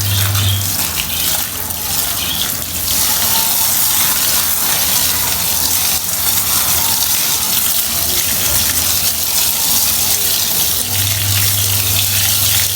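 Water spraying hard onto a heavily soiled, soaked carpet, a loud steady hiss. A low steady motor hum sits under it at the start and comes back near the end.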